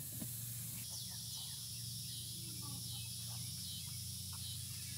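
Steady hiss of water misting nozzles spraying over a chicken run, with a chorus of short high chirps coming in about a second in.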